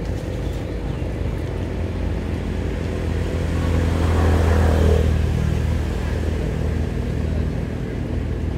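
A motor vehicle's engine running steadily, getting louder about three seconds in and fading again after about five seconds as it passes by.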